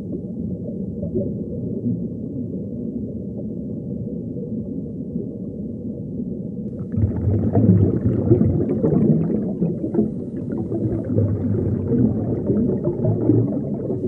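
Low underwater rumble and gurgling. About seven seconds in it grows louder and fuller, with crackling and crunching as a hawksbill sea turtle forages at the coral.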